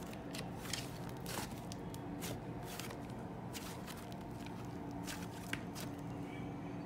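Thick butter slime being kneaded, folded and pressed by hand, giving irregular soft clicks, crackles and squishes, over a faint steady hum.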